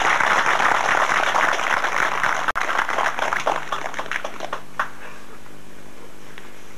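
An audience applauding by hand after a speech. The clapping is loud at first, thins out and stops about five seconds in, with a last few claps, and there is a momentary dropout in the sound midway.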